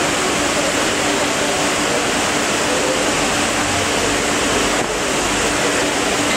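Steady, loud rushing din of a crowded railway station waiting hall, with a faint steady hum underneath.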